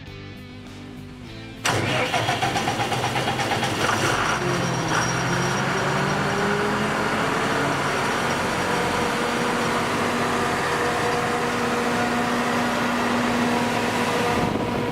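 Cummins 6BT5.9 inline-six turbocharged diesel engine of a 100 kW generator set starting about two seconds in. It picks up speed over the next few seconds, then settles into steady running.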